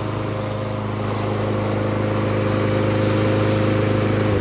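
Briggs & Stratton 725 series single-cylinder engine on a Craftsman push mower running steadily at speed, then cut off right at the end, its pitch falling as it spins down. It runs after the ignition coil gap at the flywheel was reset to cure a timing problem.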